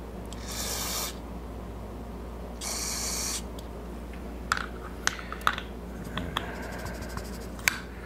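Two short hissing bursts from an aerosol spray can, about two seconds apart, followed by a scatter of light clicks and ticks of small carburetor parts being handled and fitted.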